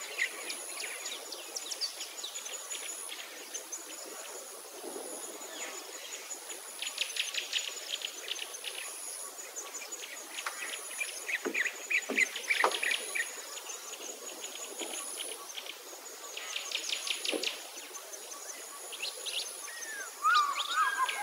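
Outdoor birdsong: several birds singing repeated rapid trills, over a high insect buzz that pulses on and off about once a second. Near the end a louder, lower, wavering bird call begins.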